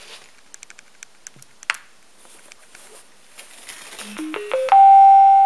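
A few clicks from handling the alligator-clip leads, then about four seconds in a TDA7492P Bluetooth amplifier module sounds its electronic chime through two coaxial speakers: four short tones stepping up in pitch, then one long steady beep.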